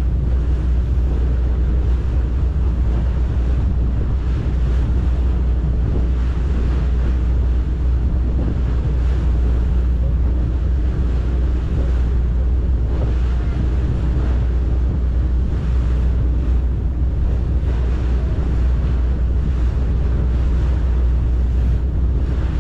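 Steady low rumble of a boat under way at sea, with wind buffeting the microphone and water rushing past the hull.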